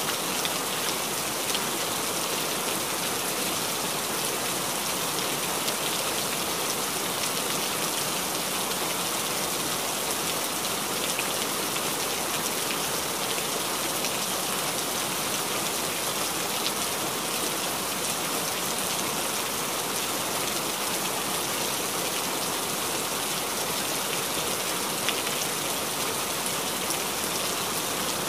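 Steady rain: a continuous even hiss with fine scattered drop ticks.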